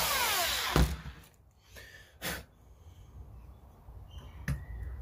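Power drill boring out the rattle chamber in a wooden lure body so the rattle will fit, running for under a second and winding down with a falling whine. It is followed by a single knock about two seconds in and a sharp click near the end.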